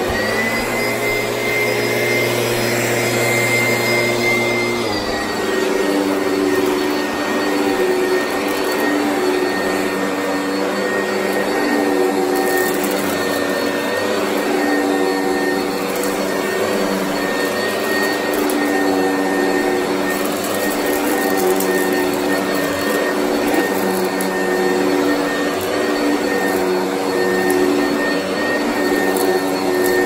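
Oreck XL upright vacuum cleaner running on carpet: a steady motor whine whose pitch drops slightly about five seconds in, then holds steady.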